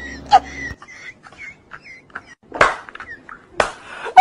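A man trying to hold in laughter: faint short squeaks and clicks, then two louder short bursts of breath near the end, just before he breaks into open laughter.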